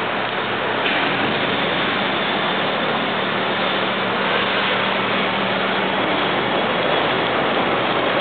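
Steady factory-floor noise: a loud, even rushing hiss with a faint low hum under it, growing a little brighter about a second in.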